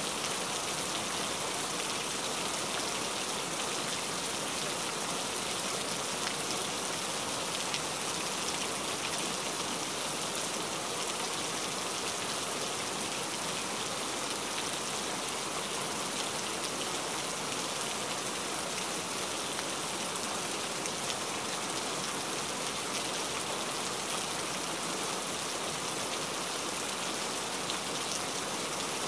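Steady rain falling: an even hiss made of many small drop ticks, unchanging throughout.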